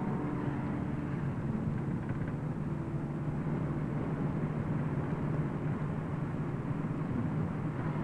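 Steady engine and road noise of a car driving, heard from inside the cab, with a continuous low hum.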